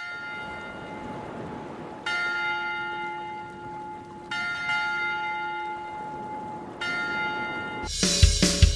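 A bell struck four times, about two seconds apart, each strike ringing on until the next. Near the end a music track with a heavy drum beat comes in.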